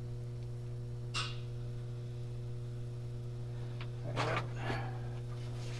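Steady electrical mains hum, with brief rustles and light knocks from gloved hands handling a TIG torch: one short rustle about a second in, and a louder rustle and clatter about four seconds in.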